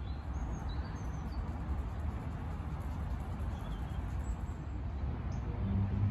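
Outdoor ambience: a steady low rumble with a few faint, short, high bird chirps, mostly in the first second or so. A brief low hum comes near the end.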